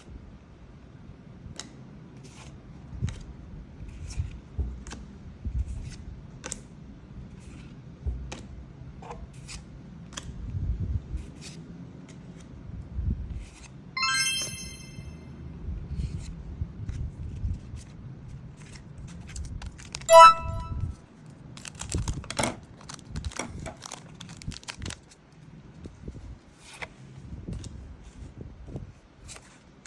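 Hands handling and opening card packaging: scattered clicks, taps, rustles and crinkles. A brief high-pitched tone sounds about halfway through, and a louder short tone, the loudest sound, about two thirds of the way in.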